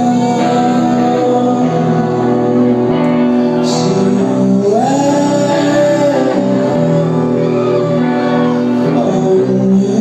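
Live rock band performing: a male singer's vocals over electric guitar, with held notes and sliding sung phrases.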